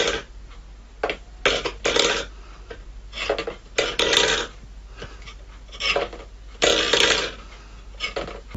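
Stainless steel bowl scraping and clattering on a wooden floor as a cat pushes it with its paw, in about ten short, irregular bursts.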